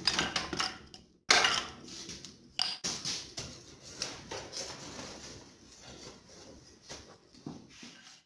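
Metal clinking and clattering as tools and steel stock are handled in a blacksmith's shop, over a steady hiss; the sound drops out and starts again abruptly about a second in and near three seconds in.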